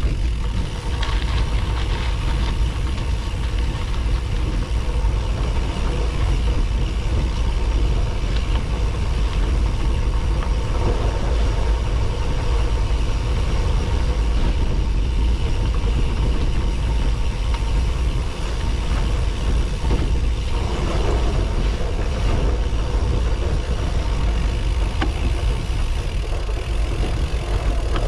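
Steady low wind rumble on a bike-mounted action camera's microphone, mixed with gravel-bike tyres rolling over a dirt trail and occasional small clicks and rattles.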